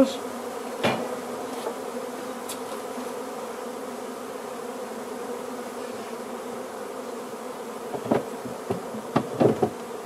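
Honey bees of a swarm, stirred up after being shaken into a wooden hive box, buzzing in a steady drone. A knock about a second in and a cluster of wooden knocks near the end as the box's cover board is handled and set in place.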